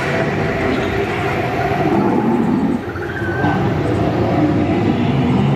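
Steady rumble of a steel roller coaster's train running along its track, with a brief faint rising whistle about three seconds in.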